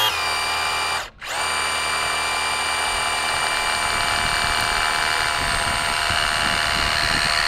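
Traxxas Rustler's 5200 kV brushless electric motor and drivetrain running at full throttle, a steady high whine, while the tire spins against the asphalt and burns off rubber. The power cuts out briefly about a second in, then comes straight back.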